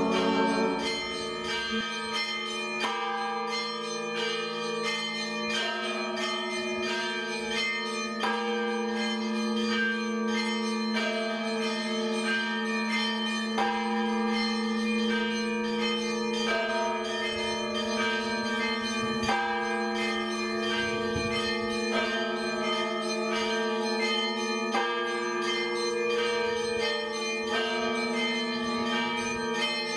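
Church bells ringing: several bells struck again and again, each ringing on, over the steady hum of a lower bell.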